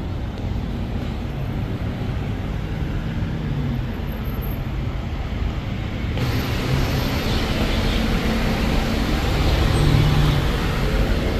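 Steady road-traffic or vehicle noise, a low rumble under a hiss, which changes abruptly to a brighter hiss about six seconds in.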